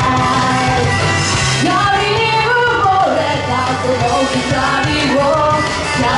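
A woman singing live into a handheld microphone over backing music with a steady bass line.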